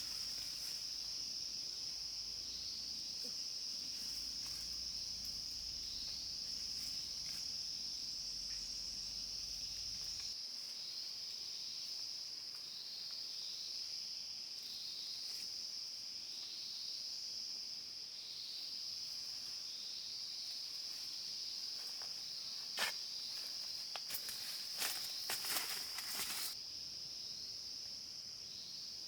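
Insects droning steadily at a high pitch, with a short falling chirp repeating about once a second through the first two-thirds. A few sharp clicks and rustles come near the end.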